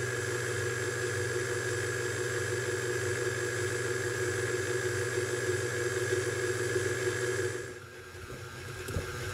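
KitchenAid Classic tilt-head stand mixer running at low speed, its dough hook kneading bread dough: a steady motor whir with gear hum. The low hum falls away about two seconds before the end.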